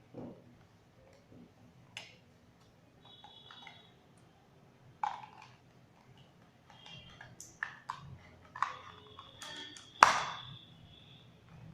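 Hands handling earphone packaging: scattered clicks, taps and short plastic squeaks, busier in the second half, with one louder knock about ten seconds in.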